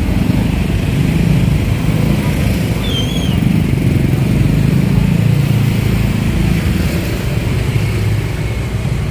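Motorcycle and scooter engines running in slow, crowded traffic, a steady low rumble, with a brief high chirp about three seconds in.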